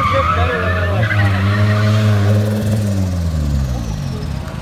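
Car engine revving hard as the car drifts, with tires squealing on the pavement over the first couple of seconds. The engine note then falls in pitch and the squeal fades as the car comes off the throttle close by.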